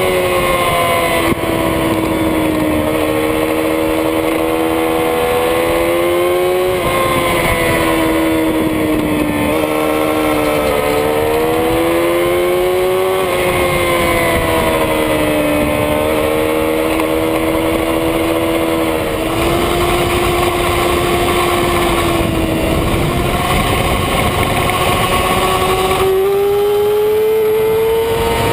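A 2007 Yamaha R6's inline-four engine heard at speed from on board, its note dipping and rising every few seconds with the throttle through a long corner, then climbing steadily near the end as the bike accelerates onto the straight. Wind rushes over the microphone throughout.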